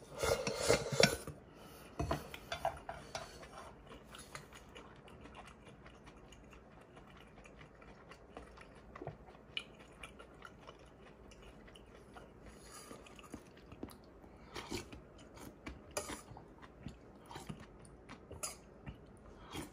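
Chewing of cold cucumber-and-seaweed soup, with a metal spoon clinking now and then against a stainless steel bowl. Near the start, a stainless steel pot clatters loudly for about a second as it is handled and set down.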